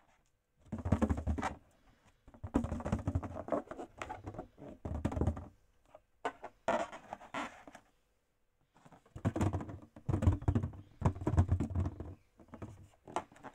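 Inflated latex balloons handled by hand: rubbing, squeezing and bumping of the rubber in about ten short bursts, no pop.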